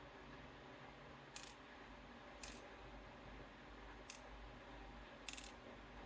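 Four faint, sharp little clicks spaced a second or so apart, small metal lock parts knocking: key pins being tipped out of a Goal Z lock's core.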